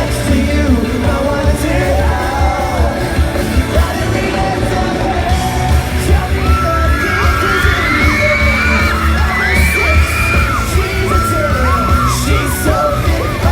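A pop-punk band playing live through a large hall's PA: heavy drums and bass under guitars and singing, with the audience yelling along. From about halfway, high voices singing or shouting rise above the band.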